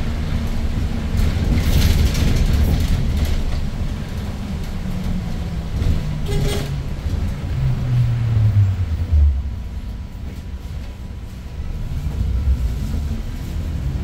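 Inside a 2019 Daewoo NEW BS090 city bus on the move: its GL08P compressed-natural-gas engine runs as a low drone under the passenger cabin noise. The engine note falls about eight to nine seconds in as the revs drop, runs quieter for a couple of seconds, then picks up again near the end.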